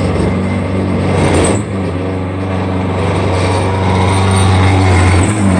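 CNC mill cutting metal with a worn high-speed-steel end mill: the spindle is running with loud chatter and vibration, which comes from the thin stock sticking up from the vice and the nearly worn-out cutter. The sound dips and shifts briefly about a second and a half in.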